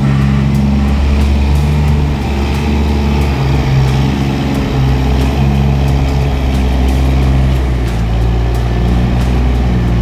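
Container reach stacker's diesel engine running loud and steady as the machine drives, its pitch shifting a few times, with the even hiss of its white-noise reversing alarm over it.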